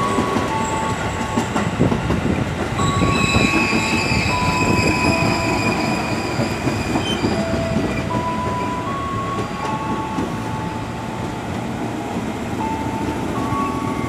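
Electric commuter train rolling past the platform, its wheels rumbling steadily on the rails. A high squeal from the wheels rises over the rumble for a few seconds near the start, and the sound eases slightly in the second half as the train moves on.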